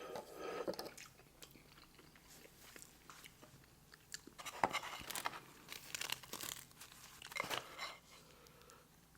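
Close-miked chewing and wet mouth sounds of a person eating, coming in several bursts with short pauses between.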